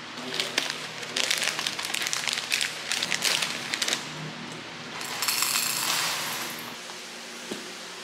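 A crinkly plastic snack pouch rustling as granola is poured out, the pieces clattering into an enamelware bowl in crackly bursts through the first four seconds, then another rustling, pouring stretch about five to seven seconds in.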